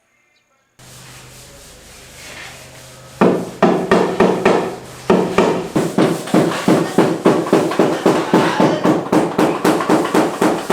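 Rapid hammering at a construction site: sharp strikes at about three a second that start about three seconds in, with a brief pause near the middle, over a steady low hum.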